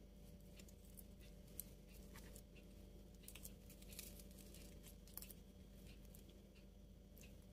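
Faint, irregular light clicks and taps over a low steady hum, near silence: small kitchen handling noises while bread is being prepared.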